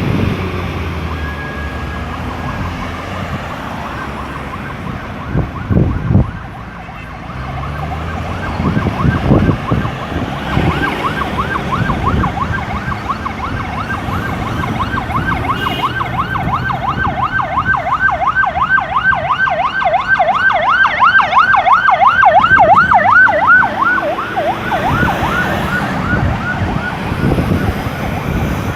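Road traffic going by, with vehicles passing about six and nine seconds in. From about ten seconds in, an emergency vehicle's siren sounds in a fast yelp, about four sweeps a second, growing louder to a peak a little after twenty seconds and then fading as it passes.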